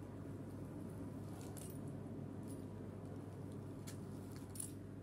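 A few light clicks and taps of a hand cutter against a wooden board as puff pastry is cut into strips, over a steady low hum.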